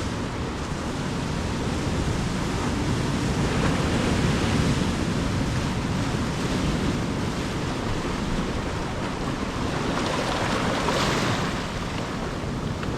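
Ocean surf: waves breaking and washing up the shore in a steady hiss that swells twice, about four seconds in and again near eleven seconds, over a low wind rumble on the microphone.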